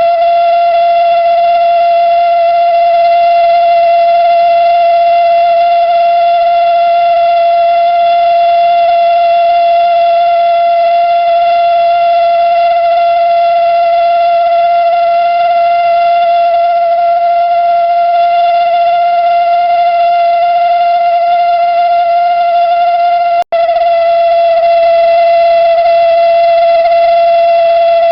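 Toyotomi Laser Burner kerosene heater's burner resonating: a loud, steady steam-whistle-like tone with overtones, the sign of the burner running short of air. It breaks off for an instant about 23 seconds in, then carries on unchanged.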